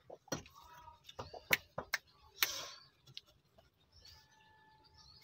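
Sharp knocks and scrapes of stones and bricks being set down by hand in a brick nesting pen. A faint steady tone comes in near the end.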